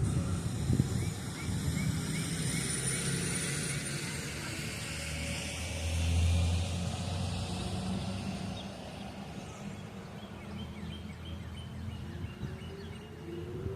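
Lull between siren cycles: low traffic rumble and short bird chirps. Near the end the Whelen WPS-4004 electronic siren's tone starts rising again as its second alert cycle winds up.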